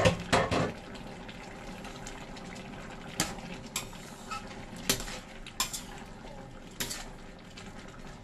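A spatula stirring a thick stew in a stainless steel pan, knocking and scraping against the metal in sharp clicks spaced a second or so apart, the loudest at the very start, over a steady low hiss.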